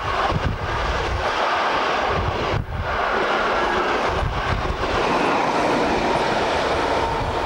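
Passenger train of silver 'Silberling' coaches passing close by at speed, with a steady loud rumble of wheels on rail and some clatter over rail joints. Near the end the diesel locomotive pushing at the rear, a DB class 215, passes with it.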